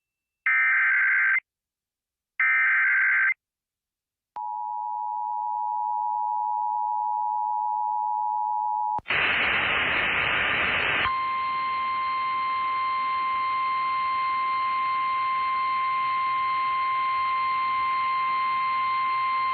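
Emergency Alert System tones for a severe thunderstorm warning: two short buzzing bursts of SAME header data, then the two-tone EAS attention signal held for about four and a half seconds. About nine seconds in a burst of static starts, and from about eleven seconds in the single-pitch 1050 Hz NOAA Weather Radio warning alarm tone sounds steadily over the static.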